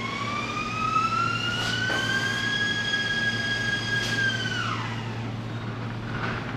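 A machine's high whine climbs slowly in pitch, holds steady for a couple of seconds, then falls away about three-quarters of the way through, over a steady low hum.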